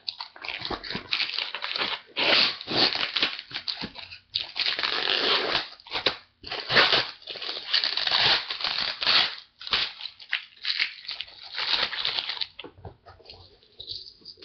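Packing paper crinkling and tearing in irregular bursts as a parcel is unwrapped by hand; it quietens near the end.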